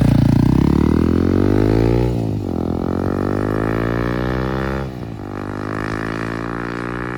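Honda CRF300L single-cylinder four-stroke engine through a loud budget aftermarket muffler, accelerating through the gears. The pitch climbs, drops sharply at an upshift about two seconds in, climbs again, and drops at a second shift near five seconds.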